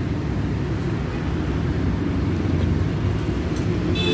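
Steady low rumble of nearby road traffic, with motor vehicle engines running. Near the end there is a brief high-pitched tone.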